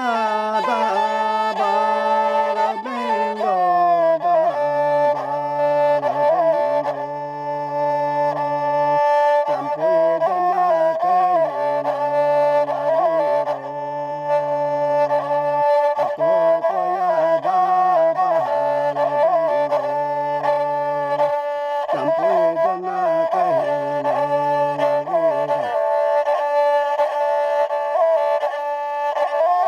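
Instrumental Kaipeng folk tune on the sarinda (saranda), a bowed folk fiddle, playing a melody over a steady held drone. A low bass part drops out a few seconds before the end.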